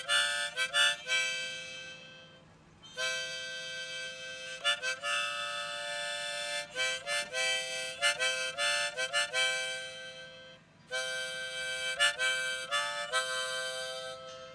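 Harmonica music: short stabbed chords and longer held notes in phrases, with brief pauses between them.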